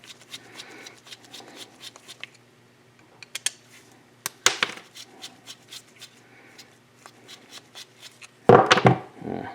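Screwdriver clicking and scraping in the head of a small screw on an oil pump housing, with scattered light metal taps: a Phillips driver camming out of a JIS screw and stripping it. A louder burst of handling noise comes near the end.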